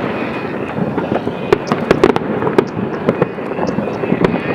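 Fireworks and firecrackers going off: a dense, irregular string of sharp cracks and pops over a continuous din of distant bangs.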